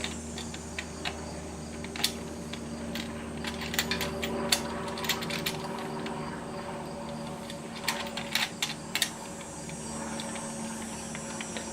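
Irregular light clicks and taps of metal hardware as nuts and washers are threaded by hand onto bolts, clustered about four to five seconds in and again around eight to nine seconds. A steady hum runs underneath.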